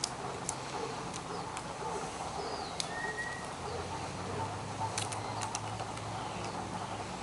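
Outdoor background with faint calls of small birds, including a short whistled note about three seconds in, a few sharp clicks, and a low hum that sets in about halfway.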